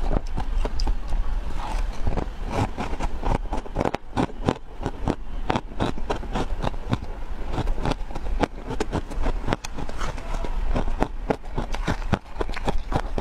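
Close-up crunching and chewing of frozen ice chunks in the mouth: a dense run of sharp, crackly crunches.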